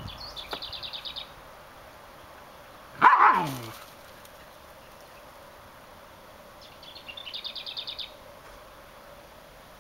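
A dog gives one loud bark, falling in pitch, about three seconds in. A small bird sings a rapid high trill near the start and again near the end.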